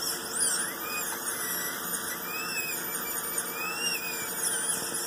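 High-speed dental handpiece with a fine round diamond bur whining at a high pitch that wavers up and down as it is lightly run over the inner surfaces of the lower front teeth, roughening the enamel so the retainer's composite bonds better.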